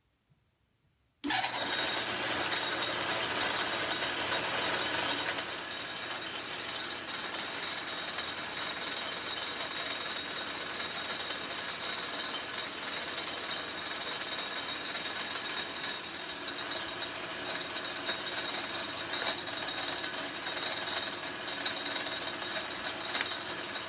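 Restored Atlas metal lathe switched on and running in reverse, its quarter-horsepower GE motor driving the headstock in back gear with the power feed engaged: a steady mechanical running noise with a high whine. It starts abruptly about a second in and goes on a little quieter from about five seconds in.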